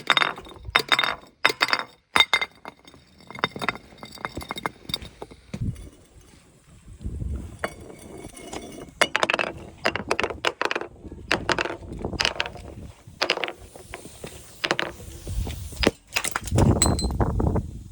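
Glass bottles breaking, with sharp clinks and the ringing of shards in the first few seconds. After that comes a series of irregular crunching, crushing sounds.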